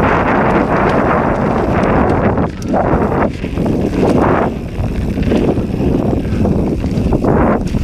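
Wind buffeting the microphone of a camera on a moving mountain bike, in loud gusts that rise and fall, over tyre noise and the bike rattling on a rough trail.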